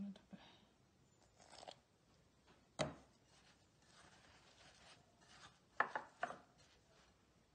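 Chopsticks stirring a wet flour-and-oatmeal mixture in a ceramic bowl, with quiet scraping against the bowl. Sharp taps of the sticks on the bowl come about three seconds in and twice close together near six seconds.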